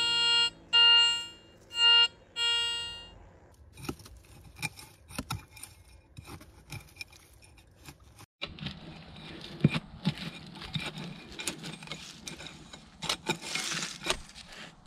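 A buzzy electronic tone sounds in three short beeps, then a digging knife scrapes and clicks into stony, leaf-littered soil as a small hole is dug.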